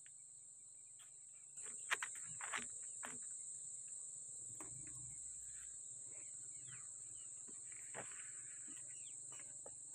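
Steady high-pitched chirring of a night insect chorus, crickets, with scattered rustles and sharp clicks from a cloth or sack being handled close by; the sharpest click comes about two seconds in.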